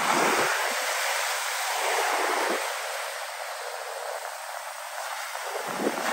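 Sea surf breaking and foam washing up a sandy beach: a steady rushing hiss, strongest at first, easing off through the middle and swelling again near the end.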